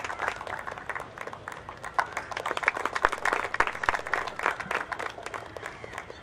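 Audience applauding, the individual hand claps distinct.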